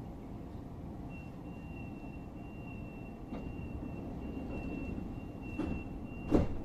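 Class 425 electric multiple unit with a steady low rumble. About a second in, a thin, steady high-pitched tone comes in and holds. A couple of faint knocks follow, then one loud thump near the end.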